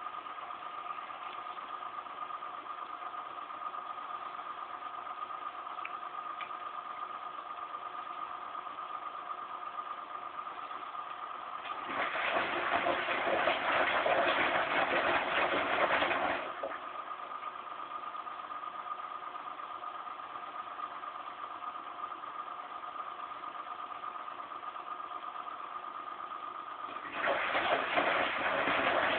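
Zanussi Z 630 front-loading washing machine running its final rinse, with a steady motor hum at a few fixed pitches. About twelve seconds in, a louder rushing spell of water and drum noise lasts some four seconds, and another starts near the end.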